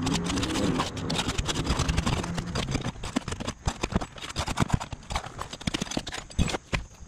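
Flat pry bar working under asphalt roof shingles: irregular clicks, knocks and scrapes as the bar is slid in and the shingles are broken loose from their seal strips and lifted.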